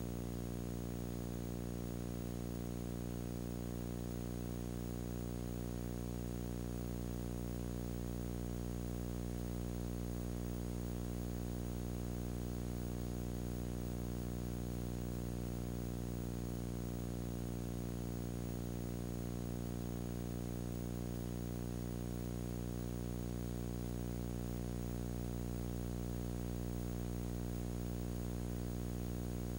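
Steady electrical hum with a constant hiss and no other sound.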